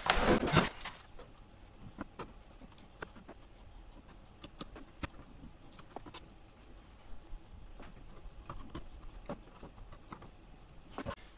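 A short rustle, then scattered small clicks and taps of RAM sticks being pulled out of and pushed back into a motherboard's memory slots, the slot latches snapping as the modules are moved to the right slots.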